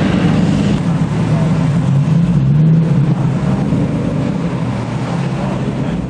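A car engine running steadily, its low note rising and falling slightly.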